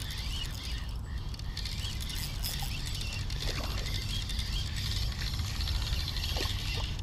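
Spinning reel, a 13 Fishing Creed GT 3000, being cranked steadily with fine rapid ticking as a small fish is reeled in on a double fluke rig, over a steady low rumble of wind on the microphone.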